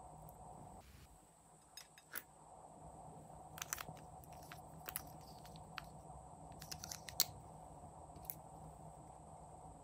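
Scattered small plastic clicks and taps from toy markers and their caps being handled and knocked together, the loudest a little past the middle, over a faint steady hum.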